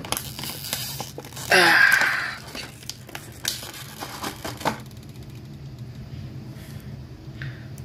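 Clear plastic blister packaging crinkling and crackling as fingers work a small plastic pumpkin accessory out of its tray, with a loud burst of crackling about a second and a half in. After about five seconds the handling stops and only a low steady hum remains.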